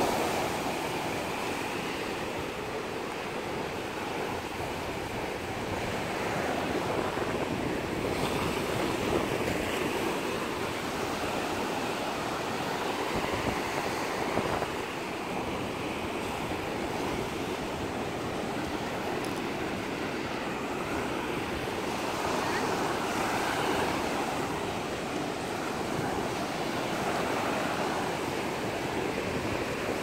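Ocean surf: waves breaking and washing up onto a sandy beach, a steady rushing noise that swells and eases.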